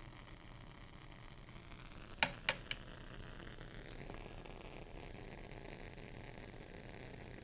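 Faint steady hiss, with three sharp clicks a little over two seconds in, as burning magnesium ribbon in metal tongs is knocked down onto the lab benchtop.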